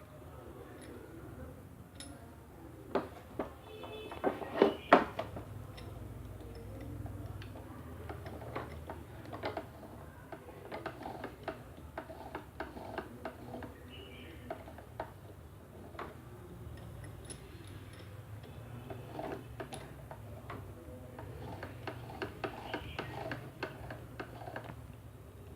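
Small hard-plastic and metal clicks, taps and rattles of a Bosch GSB 13 RE drill and a drill bit being handled while the bit is fitted into the chuck, with a cluster of sharper knocks about four to five seconds in.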